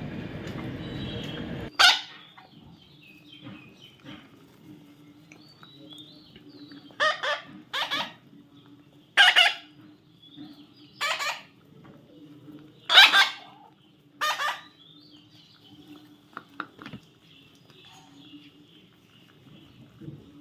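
Baby parrot giving loud, harsh squawks, about seven short calls with gaps between them, two of them close together. A steady rushing noise cuts off suddenly about two seconds in, and a faint low hum runs underneath.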